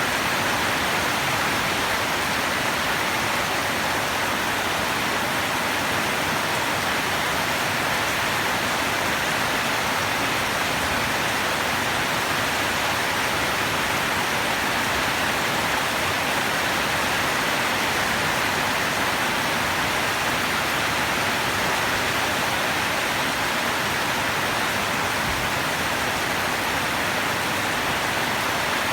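Steady heavy rain falling, an even hiss.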